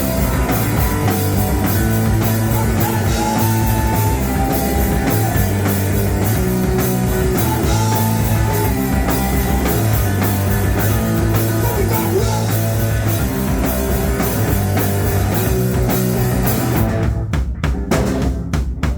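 Live punk rock band playing: guitars, bass and drum kit with steady, regular drum hits. About seventeen seconds in, the band breaks into sharp stop-start hits with short silences between them.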